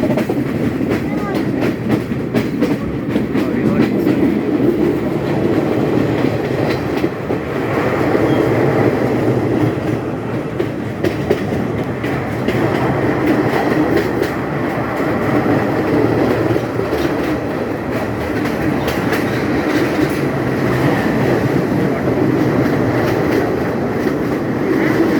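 Passenger train running along the track: a steady rumble with many sharp clicks of the wheels on the rails.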